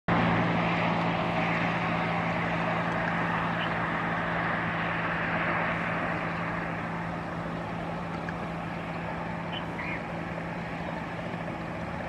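Steady engine drone with a low hum, with a few faint, short high chirps in the middle and near the end.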